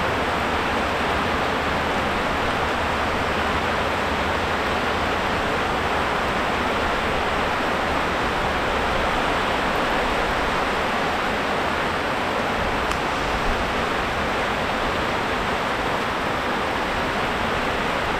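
Heavy rain falling, a steady, unbroken hiss.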